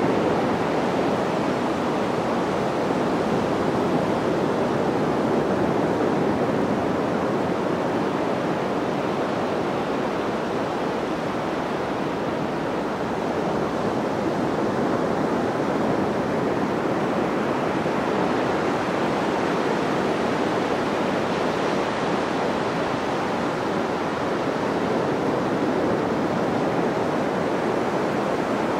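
Sea surf breaking on the beach: a steady wash of waves that swells and eases slightly.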